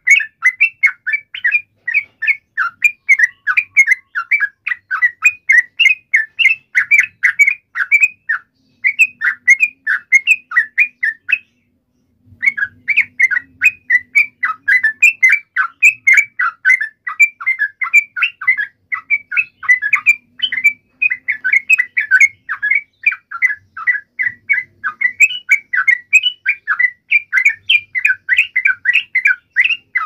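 Yellow-vented bulbul singing a fast, unbroken run of bright chirping notes, several a second, with one short break a little before halfway.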